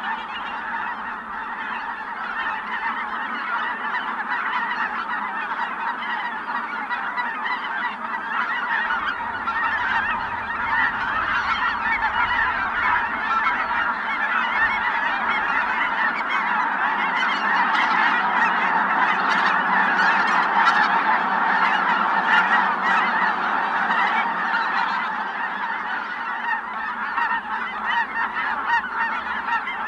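Large flock of Ross's geese calling continuously, a dense chorus of many overlapping honks that swells a little in the middle.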